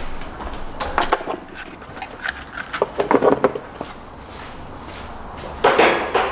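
Hand-work noise in an open engine bay: a few light clicks and knocks of tools and parts being handled, then a short rustle near the end.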